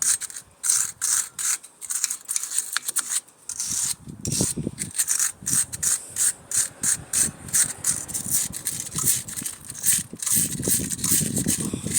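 Rust being scrubbed off the metal of a car's front brake assembly by hand, a run of rasping back-and-forth strokes at about three a second.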